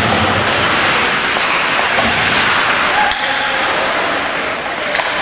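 Ice hockey arena noise during play: a steady wash of noise, with a sharp knock about three seconds in and a fainter one near the end.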